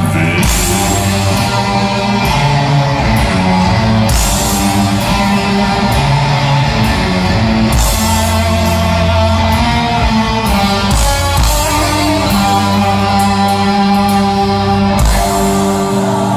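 A heavy metal band playing live, loud: distorted electric guitars and bass over drums, with cymbal crashes about every four seconds, heard from within the concert crowd.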